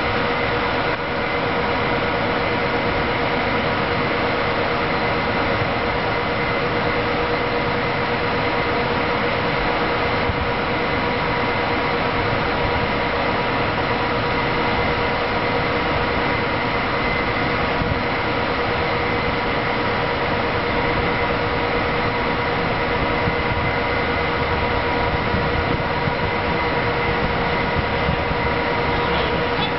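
Electric locomotive standing with its cooling blowers running: a steady, even rushing noise with a few constant whining tones.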